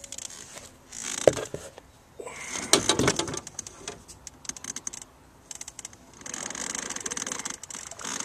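Clicking, knocking and rattling of gear being handled in a small boat, with a sharp knock about a second in, a dense run of clicks in the middle, and stretches of hiss.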